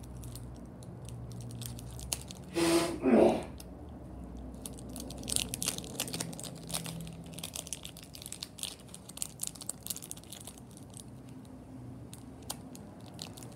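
Foil wrapper of a Pokémon card booster pack crinkling and being torn open by hand: constant small crackles, with a louder tear about three seconds in.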